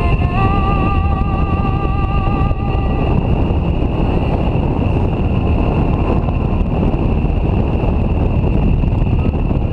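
Motorcycle running at road speed, its engine rumble mixed with wind rushing past the microphone. A high whine steps up in pitch just after the start and fades out after about three seconds.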